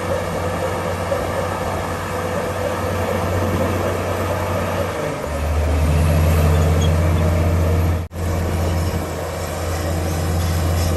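Komatsu D65PX bulldozer's diesel engine running steadily under work. About five seconds in its note drops lower and grows louder, and the sound cuts out for an instant about eight seconds in.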